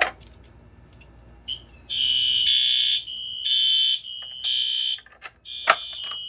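A sharp click, then about two seconds in fire alarm horns start sounding in the temporal-three evacuation pattern: three blasts of about half a second each, then a pause, over a steadier high tone. Another sharp click comes near the end.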